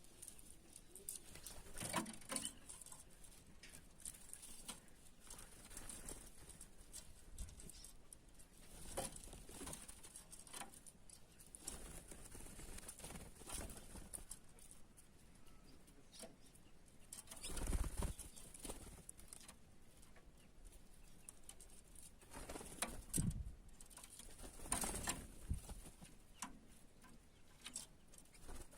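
Birds at a dish of water: scattered soft wing flutters, taps and rustles, with a few louder flurries spread through.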